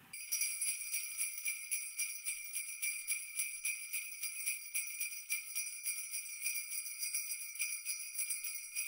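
Sleigh bells jingling continuously, shaken in a quick, even rhythm with a bright, high ring and no other instruments.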